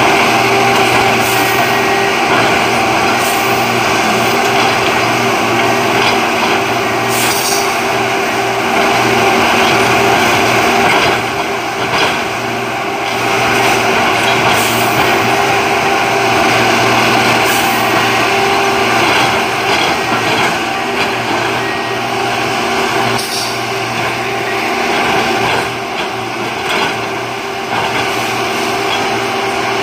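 Diesel engine of a rail-bound maintenance-of-way tie machine running steadily, with brief hisses now and then.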